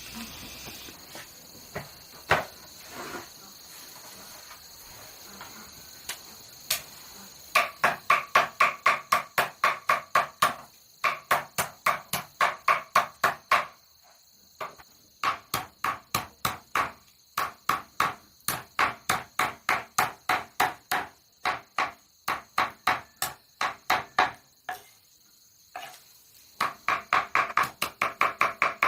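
Fast, even strikes, about three a second, each with a short ringing note; they come in runs of several seconds with brief pauses between. Before they start, a steady high insect buzz and a few single knocks.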